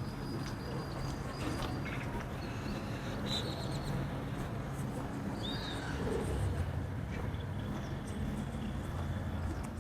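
Outdoor street ambience: a steady low rumble with a few short, high bird chirps and whistles scattered through it, one curving chirp about six seconds in.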